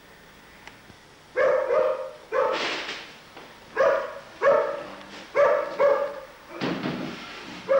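A dog barking repeatedly, about eight barks starting a little over a second in, irregularly spaced.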